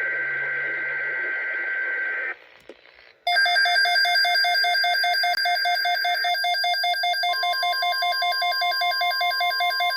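Emergency Alert System alert tones. First a steady, buzzing two-tone data burst that stops a little over two seconds in. After a brief pause comes a rapidly pulsing electronic alert tone, about three pulses a second, and a second steady tone joins it about seven seconds in.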